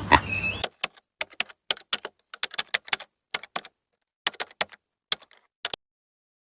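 A loud sound cuts off about half a second in. It is followed by a run of short, sharp clicks at an irregular pace of a few a second, which stop shortly before the end.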